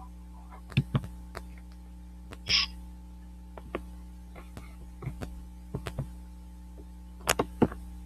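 A few scattered sharp clicks and knocks over a steady low hum, the loudest a pair about a second in and another pair near the end, with one short hiss about two and a half seconds in.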